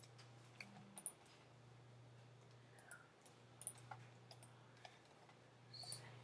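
Faint, scattered clicks of a computer mouse and keyboard in use, about a dozen at uneven intervals, over a low steady hum.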